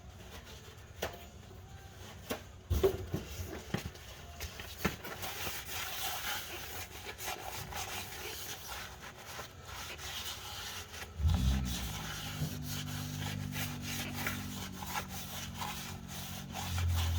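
A paper towel rubbing and wiping over a metal clutch surface, most likely the flywheel face, in irregular strokes with small knocks. About eleven seconds in, a steady low machine hum starts up and gets louder near the end.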